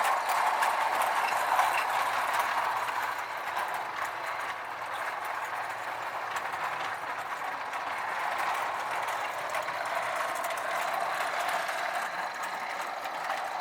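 Marx toy train running around the track: a steady rattling clatter of the motor, gears and wheels over the rails. It fades a little about four seconds in and swells again as the train comes back around.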